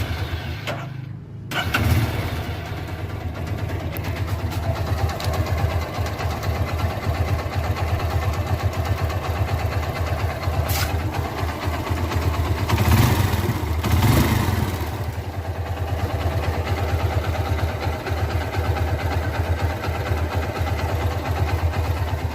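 Vehicle engine catching about a second and a half in, then idling steadily, with two short revs about halfway through. It runs without the odd noise now that a new tensioner is fitted.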